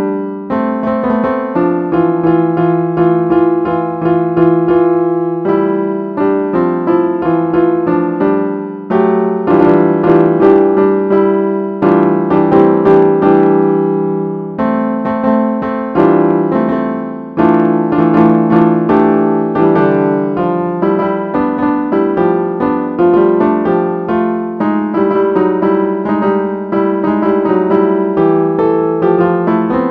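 Piano tune played on a phone piano app's sampled piano sound: a continuous run of quick notes with frequent new attacks and some notes held under them.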